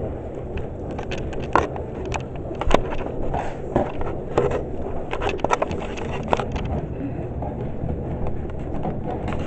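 Dishwasher running a wash cycle with a steady low churning noise, while irregular clicks and knocks sound over it for the first several seconds.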